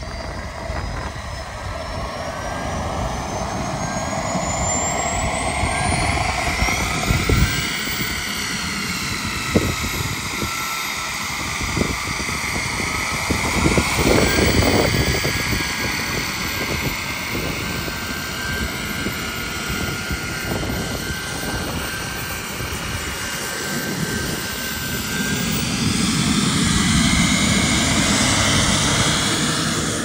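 Kingtech K-30TP model turboprop running on the ground in an RC plane, a steady turbine whine mixed with propeller noise. A high whine rises in pitch over the first few seconds, and the run grows louder for a few seconds near the end.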